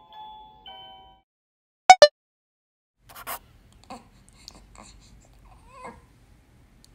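A light chime tune ends about a second in, then two short, loud squeaky tones. After that, a newborn baby makes faint grunts and small squeaks.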